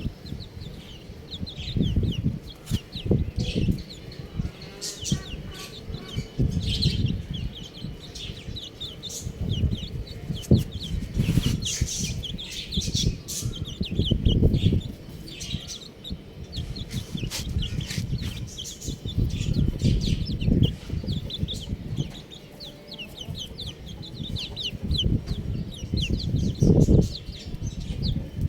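A group of baby chicks peeping: many short, high, falling peeps in quick succession throughout. Loud low rumbling and thumping noise runs underneath.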